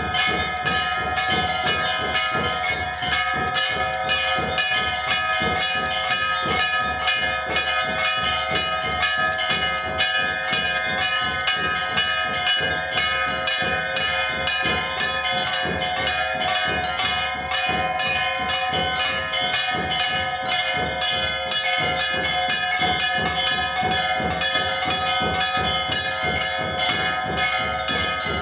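Hindu temple bells rung continuously and rapidly, the quick strikes overlapping into one steady, loud metallic ringing.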